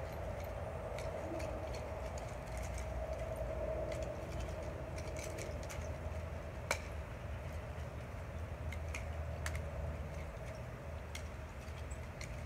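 Steady background hum and low rumble with scattered light clicks and ticks, one sharper click a little past halfway.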